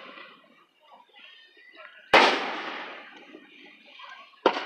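Aerial firework shells bursting: a loud bang about two seconds in followed by a long fading rumble, and another sharp bang near the end.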